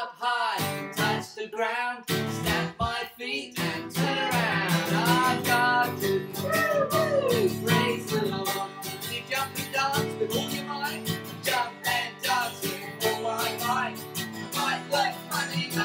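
Strummed acoustic guitar accompanying an action song, with a singing voice gliding up and down over it in places.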